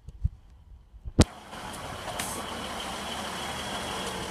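East Midlands Trains Class 153 diesel railcar's underfloor engine running and the unit rolling along the platform close by, a steady noise with a faint high whine. It starts after a sharp knock about a second in.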